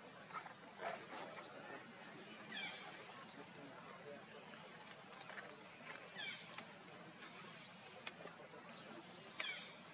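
A bird repeating short, high, dipping-and-rising chirps about once a second, with a few fainter falling calls and light clicks in the background.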